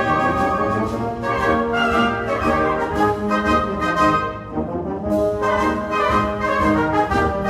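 Orchestral music led by brass playing held chords, softening briefly about halfway before the full sound returns.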